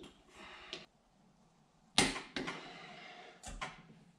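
Socket wrench ratcheting on the ring gear bolts of a differential carrier, short runs of rapid clicking broken by sharp knocks of tools on the carrier. The loudest knock comes about two seconds in and another near the end.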